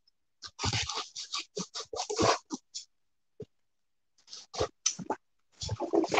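Kitchen knife slicing and scraping through packing tape on a cardboard box: a run of short, scratchy strokes, a pause, then a second run of strokes from about four seconds in.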